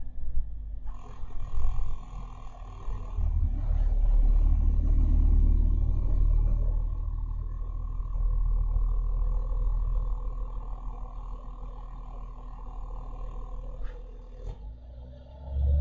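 School bus engine running, heard from inside the cabin: a deep rumble with a steady higher whine over it, swelling about four seconds in and easing off, then a click and a sudden drop near the end.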